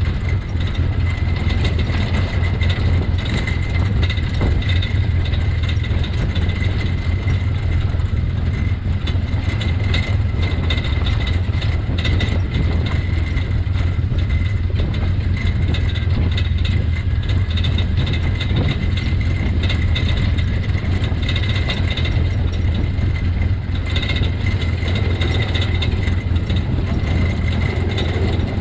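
Side-by-side UTV engine running steadily at low trail speed, with a constant high whine above the low drone. Short knocks and rattles come through as the machine rolls over the rocky trail.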